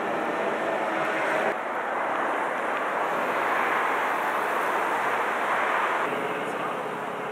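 Steady rushing outdoor background noise with no clear single source. It changes abruptly about a second and a half in and again around six seconds in.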